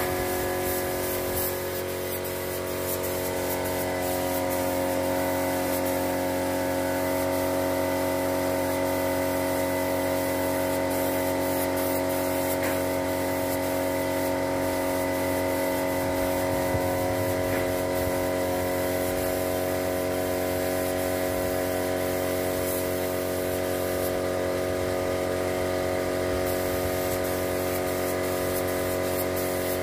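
Compressed-air spray gun hissing steadily as paint is sprayed, over the continuous hum of the air compressor that feeds it.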